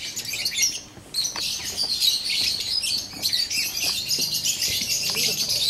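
A flock of aviary parakeets chattering and chirping, many birds at once in a dense, unbroken chorus of short, high calls.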